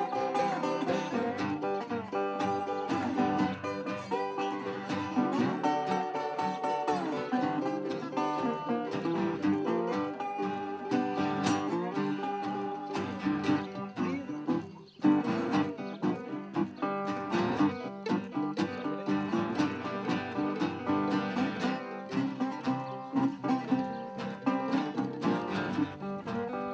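Small acoustic blues band playing together on several acoustic guitars, one of them a resonator guitar, with some bending, sliding notes. There is a brief drop a little past halfway, then a sharp accent as the playing comes back in.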